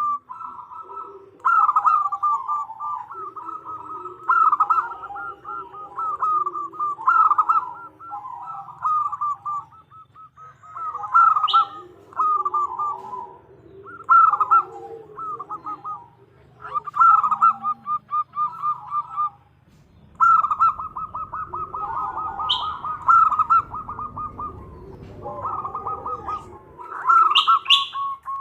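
Female zebra dove (perkutut) calling: repeated bursts of quick, rattling coos, each a second or two long and a second or so apart. A few short high chirps come in now and then.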